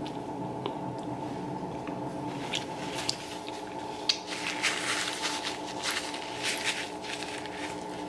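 Close-up wet mouth sounds of fingers being licked clean, then a cluster of short crisp paper napkin rustles in the middle, over a steady low hum.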